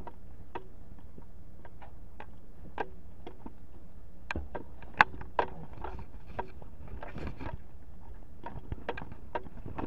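Slow footsteps on a debris-strewn floor: scattered, irregular clicks and crunches, with one sharp knock about five seconds in, over a steady low hum.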